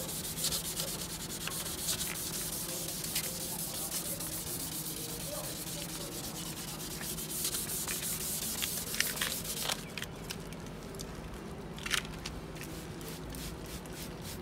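Headlight lens being wet-sanded by hand with sandpaper, a rapid rasping scratch of quick back-and-forth strokes that takes off the yellowed surface. About ten seconds in the rasping stops abruptly, leaving fainter rubbing and a sharp click.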